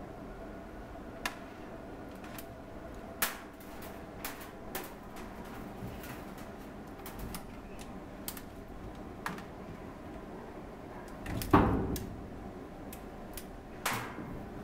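Kittens moving about a stainless-steel kennel: scattered light clicks and taps of paws and claws on the metal, with a louder thump about three-quarters of the way in and another near the end.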